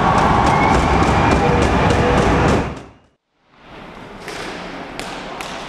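Loud roller-hockey arena sound with music, cutting out about three seconds in. Then quieter rink sound with a run of sharp clicks from sticks, ball and skates on the concrete floor.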